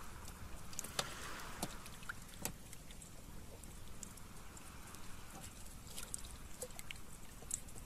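Scattered small clicks and wet handling noises as hands grip and work a freshly caught eel-like fish in a small boat, over a faint steady background of water and boat noise.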